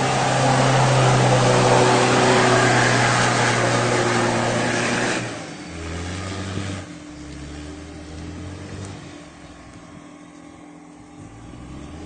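Mitsubishi Pajero 2 engine held at high revs with the wheels spinning and spraying mud for about five seconds. The revs then drop suddenly, and the engine runs lower and quieter as the SUV pulls away through the mud.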